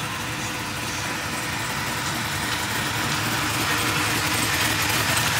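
LSA-swapped Chevrolet Caprice Brougham's supercharged 6.2-litre V8 running at low speed as the car rolls slowly by, getting steadily louder as it comes closer.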